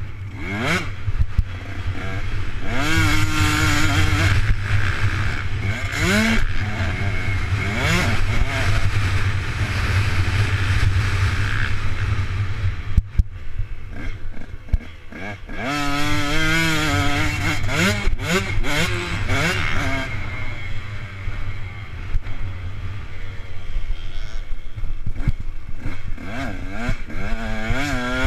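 Motocross bike engine being ridden hard, its pitch repeatedly climbing as it revs and dropping at each gear change, over heavy wind rumble on a helmet-mounted camera. About halfway through the throttle closes for a couple of seconds, with a sharp knock, before the engine revs up hard again.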